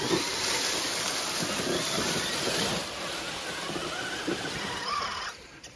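Running creek water with splashing, a steady rushing hiss that drops away suddenly about five seconds in.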